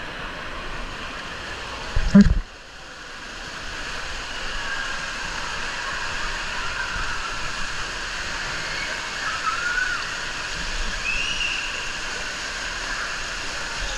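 Water rushing along a fiberglass water slide during a ride down it, a steady watery rush that swells a little after a loud thump about two seconds in.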